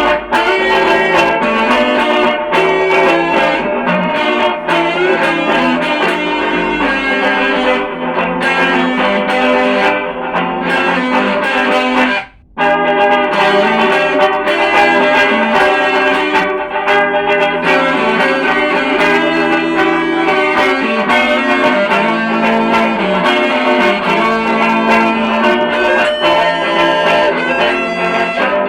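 Electric guitar, a Gibson SG, playing over layered looped guitar parts: a dense bed of sustained, repeating notes and chords with effects. The sound drops out briefly about twelve seconds in, then the loops resume.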